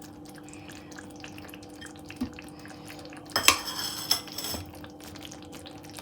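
Metal cookware clinking in the kitchen: a single light knock about two seconds in, then a brief ringing metallic clatter a little after three seconds, over a steady low hum.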